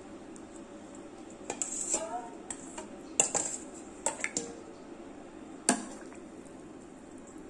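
Metal ladle clinking and knocking against the side of a metal soup pot as pork backbones are pushed down into the water. About half a dozen sharp clinks come at uneven intervals; the loudest come about three seconds in and again a little before six seconds.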